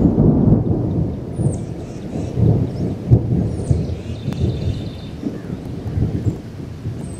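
Rolling thunder rumbling low and long, loudest at the start and slowly dying away over several seconds.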